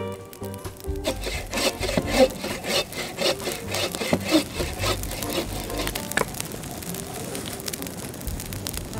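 Hand saw cutting firewood in quick back-and-forth strokes, about three a second, stopping about six seconds in; music plays underneath.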